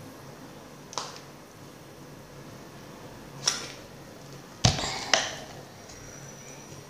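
Plastic water bottle handled while drinking: a few short clicks and crinkles, then a louder thump about two-thirds of the way through as it is set down, with one more knock just after.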